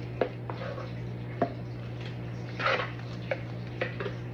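Wooden spoon stirring a thick, chunky soup in a slow-cooker insert, knocking against the pot several times with wet stirring sounds, and one short louder sound about two and a half seconds in. A steady low hum runs underneath.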